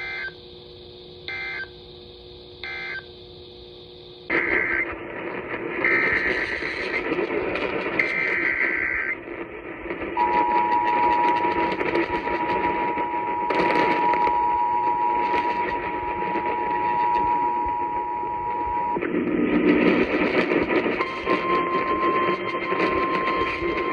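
Emergency Alert System tones over radio hiss: three short buzzy data bursts (the end-of-message code), then three longer buzzy data bursts (the digital header of a new alert). Then the two-tone EAS attention signal holds for about nine seconds, and a couple of seconds later a single steady warning tone begins.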